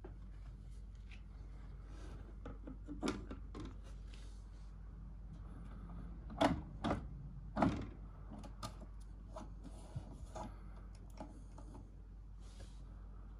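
Clicks and knocks from hands handling a Philips record player's tonearm and controls, with three louder knocks about six and a half to eight seconds in, over a steady low hum.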